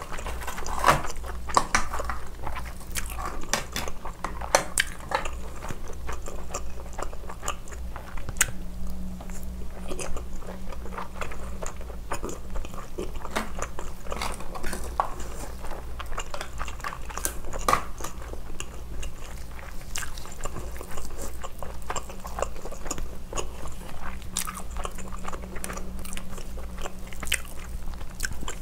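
Close-miked chewing and biting of spicy steamed scallop meat: wet mouth sounds with many small, sharp clicks.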